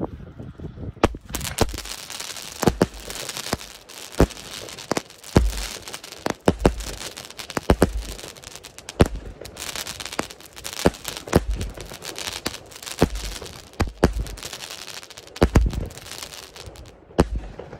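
Consumer firework battery (the 'Schwester Pyro' cake) firing its shots in quick succession: a run of launch thumps and bursting bangs about a second apart, with crackling stars between them.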